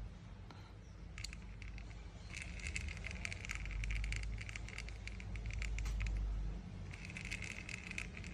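Shimano 23 Stradic spinning reel being cranked by hand, giving a rapid, gritty clicking rattle in two spells, the second near the end. This is the reel's abnormal grinding noise, which the repairer traces to failed bearings.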